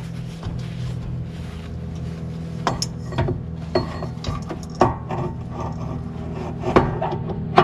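Hand-work clatter of a centrifugal drive clutch being handled at the Honda GX340 engine's crankshaft: rubbing, then irregular sharp metal knocks and clinks from about three seconds in, the loudest near the end, over a steady low hum.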